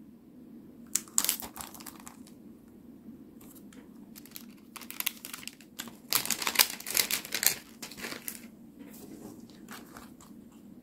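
Clear plastic packaging sleeve crinkling as a stack of paper collage cards is slid out of it and handled, in several irregular bursts, the loudest between about six and eight seconds in.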